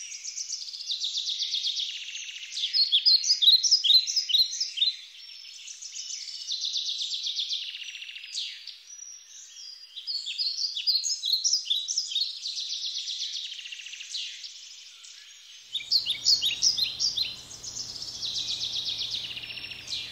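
Songbirds singing: bursts every few seconds of high phrases made of rapid trills and runs of short falling notes. Near the end a low steady hum and hiss come in under the song.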